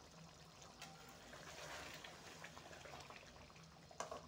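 Chicken curry gravy simmering faintly in a metal kadai, with small bubbling pops. Near the end a metal spatula goes into the pan with a short clink.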